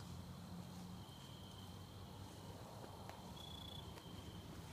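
Crickets trilling faintly in one steady high continuous note that swells now and then, over a low rumble, with a couple of faint clicks about three and four seconds in.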